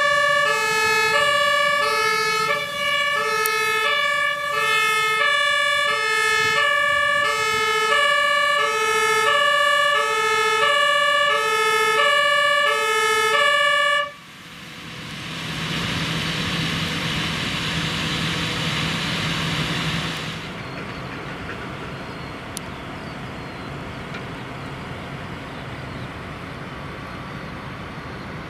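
Two-tone siren of a Rosenbauer Panther 8x8 airport fire truck, switching between two pitches about every half second, with the truck's engine under it. The siren cuts off about halfway through, followed by a loud steady rushing hiss with an engine hum for about six seconds, which then drops to a quieter rumble.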